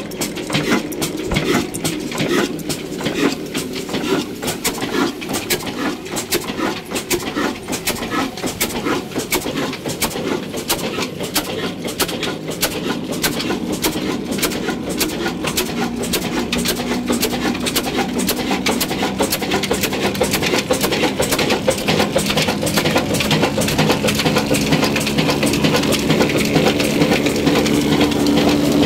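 Old Ruston Hornsby single-cylinder horizontal diesel engine running, with rapid regular exhaust beats and clatter. A steady hum joins about halfway through and grows louder toward the end.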